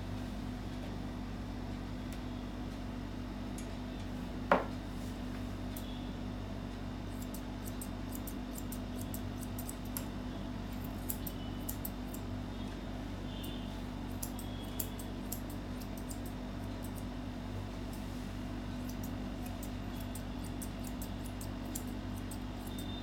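Grooming scissors snipping a Maltese's leg fur: runs of small, quick clicks over a steady low hum, with one sharper, louder click about four and a half seconds in.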